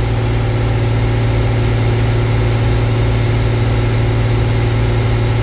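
Caterpillar 966H wheel loader's C11 diesel engine running steadily at high idle, about 2,270 rpm, with a steady low hum, together with its hydraulically driven cooling fan, while the fan's maximum speed is being calibrated.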